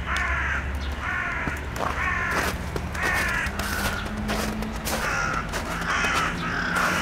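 Crows cawing: about eight harsh caws in a loose series, some close together. They are calling in alarm at a person on the ground, which the man takes as the crows barking at him and attacking.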